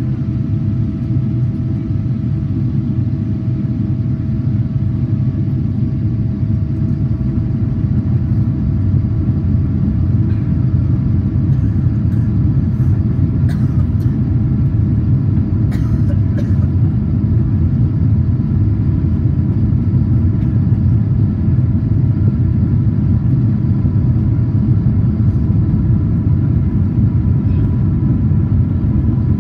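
Steady low roar of cabin noise inside a Boeing 777-300ER on approach, from its GE90 engines and the airflow over the airframe, with a faint steady whine over it. It grows slightly louder over the first several seconds.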